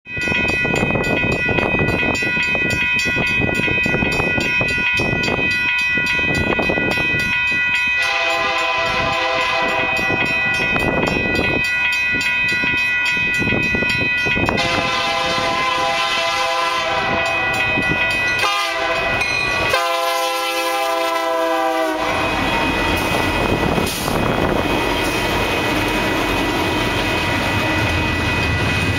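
Union Pacific double-stack intermodal freight train led by EMD SD70M diesel locomotives, approaching with its diesels running and wheels on the rails. The locomotive horn sounds a chord in several long blasts from about a third of the way in. Near the three-quarter mark the horn stops, and the stack cars roll by with a steady clatter of wheels on rail.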